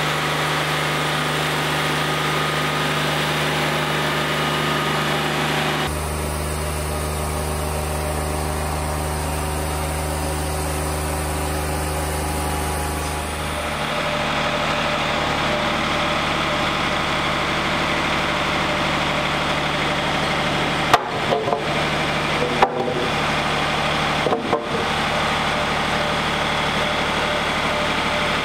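Wood-Mizer LT40 hydraulic portable sawmill's engine running steadily. Freshly sawn pine boards give a few sharp knocks about three quarters of the way through.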